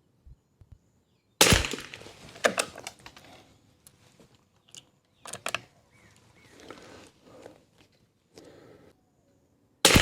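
Two shots from a Kimber 82G .22 LR bolt-action rifle, about eight seconds apart, each a sharp crack that rings off. Between them come a few clicks and knocks of handling.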